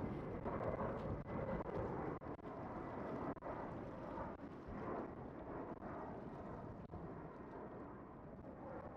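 Jet airliner engines: a broad rumble with a faint high steady whine, slowly fading as the aircraft moves away, with wind on the microphone.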